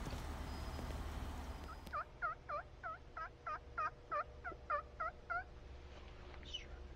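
A wild turkey yelping: a string of about a dozen evenly spaced, dipping notes, roughly three a second, running for nearly four seconds. It starts about two seconds in, after a steady low rush.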